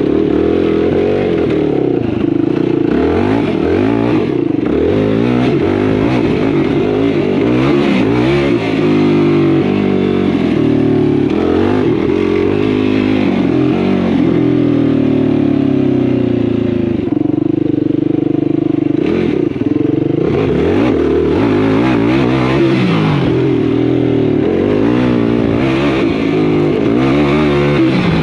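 Yamaha YFZ450R sport quad's single-cylinder four-stroke engine being ridden, its revs rising and falling continually, with a few seconds of steadier throttle past the middle.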